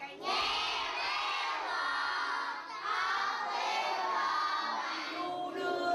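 A group of children's voices sounding together, continuous and loud, with a brief drop about halfway through.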